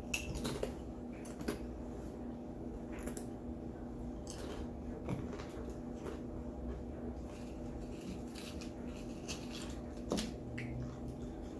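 A person eating tortilla chips with salsa close to the microphone: scattered sharp crunches and mouth clicks, over a steady low hum.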